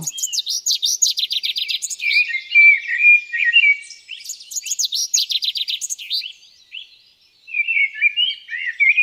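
Several songbirds singing in a spring woodland, a mix of rapid trills and varied chirps and whistles. They go quiet for a moment about seven seconds in, then start again.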